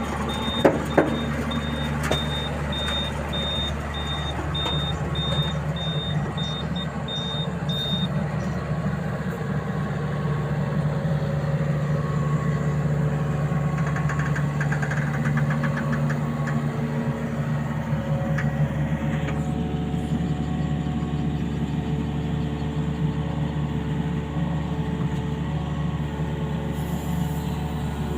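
Heavy diesel engine running steadily, with a high warning alarm beeping about twice a second that stops about eight seconds in. Two sharp knocks sound about a second in.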